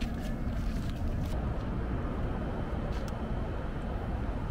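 A vehicle's engine idling: a steady low rumble, with a few faint clicks.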